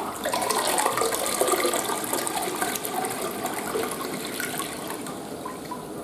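Western-style toilet flushing: water rushing and swirling down the bowl, loudest at first and gradually fading.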